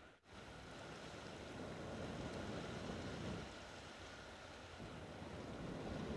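Breath blown hard onto smouldering wood shavings to fan them into flame: a rushing hiss that swells, eases about four seconds in, and swells again with the next breath.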